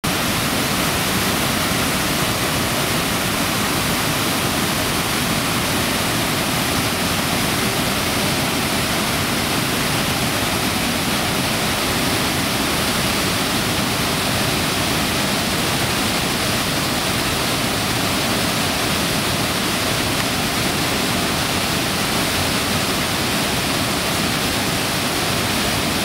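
Waterfall: white water pouring down a rock slope into a pool, a steady, unbroken rush of water.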